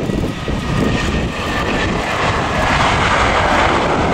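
Jet engines of an Airbus A320-214 (CFM56) on landing: a thin fan whine, then a broad roar that builds from about halfway in as the airliner is on the runway.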